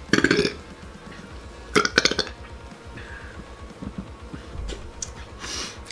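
A man burps twice, once at the very start and again about two seconds in, each a short pulsed belch. A short breathy hiss follows near the end.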